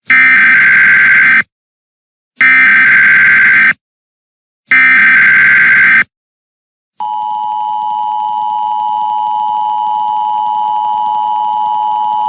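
Emergency Alert System broadcast signal: three harsh bursts of digital header data, about a second and a half each with short silences between. These are followed by the steady two-tone attention signal, the warning tone that introduces a tornado warning.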